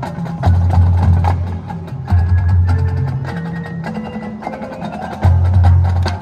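High school marching band playing: loud low bass notes come in three swells, under steady percussion hits and short mallet-percussion notes.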